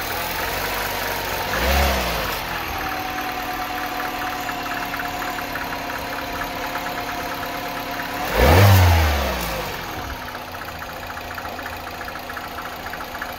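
Turbocharged direct-injection petrol engine idling steadily, blipped twice: a short rev about two seconds in and a bigger, louder rev about eight and a half seconds in, each falling back to idle.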